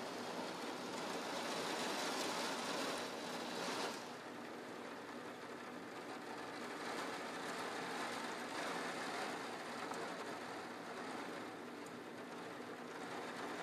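Rain falling steadily, heavier for the first few seconds, then easing suddenly about four seconds in.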